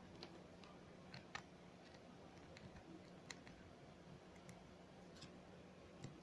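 Faint, irregularly spaced small clicks, about ten in all, from a small screwdriver and metal parts as the screws over an iPhone's battery connector are undone.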